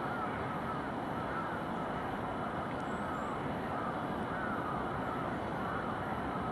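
Steady distant city hum heard from a hilltop, with faint bird calls repeating over it.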